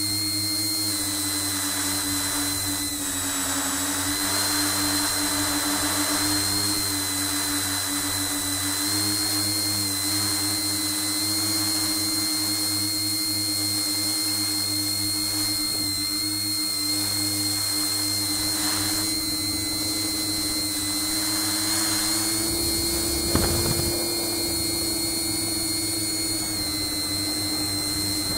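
Tricopter's electric motors spinning Graupner 9x5 three-blade props in flight: a steady whine that wavers slightly in pitch. A single knock comes about three-quarters of the way through.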